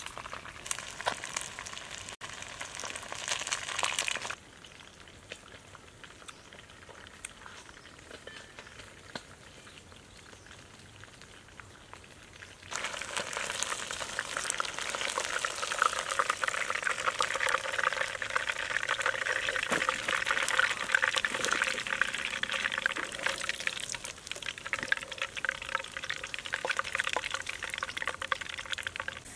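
Fish frying in hot oil: a dense crackling sizzle. It drops to a quieter hiss a few seconds in and comes back louder just before the halfway point.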